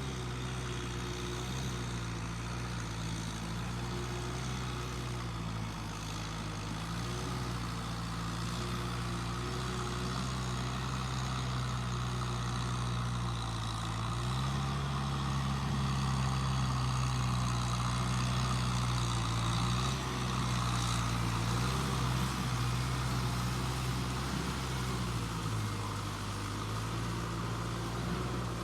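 An engine running steadily throughout, its pitch and loudness rising about halfway through and settling back near the end.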